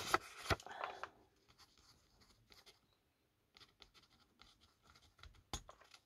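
Pen scratching faintly as it writes on a small photograph, with paper rustling in the first second and a single sharp tap near the end.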